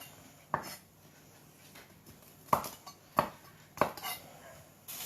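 Kitchen knife cutting green beans on a chopping board: about five sharp, unevenly spaced knocks of the blade on the board.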